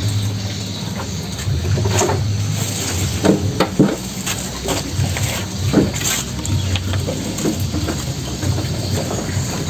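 Chopped grass fodder being handled and cattle feeding at a concrete trough: irregular rustling, knocks and clatters, loudest about three to four seconds in and again about six seconds in, over a steady low hum.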